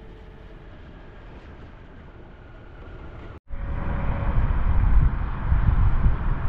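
Faint road noise, then after a sudden cut about three and a half seconds in, loud, gusty wind rushing over the microphone of a moving motorcycle with its engine running underneath.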